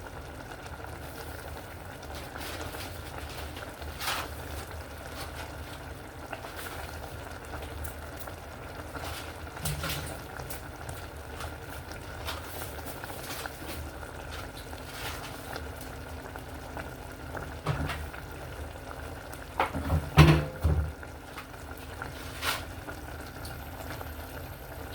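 Pot of okra soup with chicken and palm oil simmering on the stove: a steady bubbling with scattered sharp pops. A louder clatter comes about twenty seconds in.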